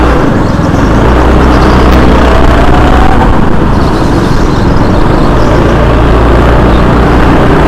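Go-kart engine running at speed, loud and continuous, with its pitch rising as it accelerates about two seconds in and again at the very end.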